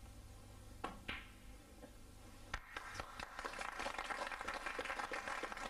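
Snooker shot: two sharp clicks about a second in as the cue strikes the cue ball and the cue ball hits an object ball. From about two and a half seconds in, audience applause builds and holds for the pot.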